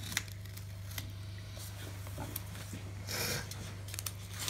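Blue painter's tape being handled and pulled off the edge of a metal board, with a few light clicks and one short tearing rustle about three seconds in, over a steady low hum.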